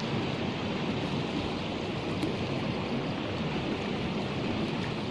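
Steady rushing of flowing canal water, an even noise with no distinct strikes or tones.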